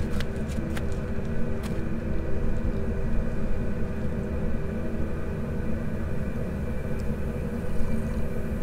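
A steady low rumble with a faint continuous hum, like a running engine. A few light clicks in the first two seconds as a steel thermos is handled.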